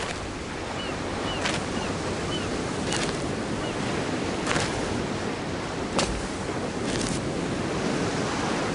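Sea waves washing on a pebble shore with some wind, a steady rush. A few short chirps come in the first couple of seconds, and sharp ticks recur about every second and a half.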